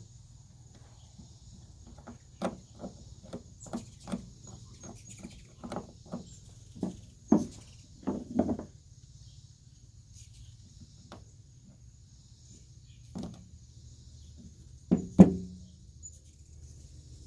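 Small tools and carburetor parts being handled on a workbench: a string of light clicks and knocks, with a louder double knock about 15 seconds in.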